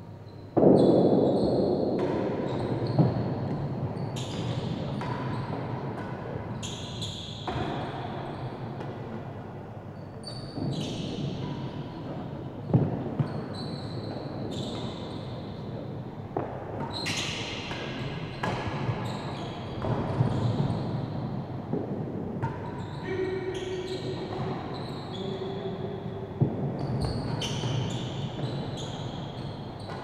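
Real tennis rally: the hard real tennis ball cracks off rackets and knocks against the court walls, floor and penthouse roof, each hit ringing in the enclosed court. The loudest hit comes about half a second in, and short squeaks from players' shoes are heard between the hits.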